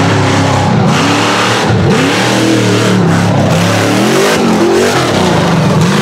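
Rock bouncer buggy's engine revving hard as it climbs a steep dirt hill, its pitch rising and falling again and again as the throttle is worked.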